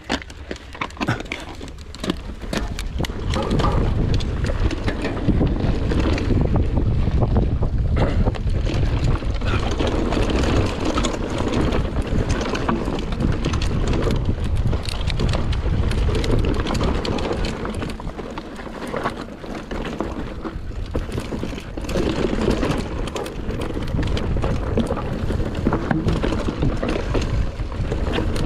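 Enduro motorcycle being ridden off-road, heard from an onboard camera: heavy wind buffeting on the microphone over the running engine, getting louder about three seconds in as the bike gets under way.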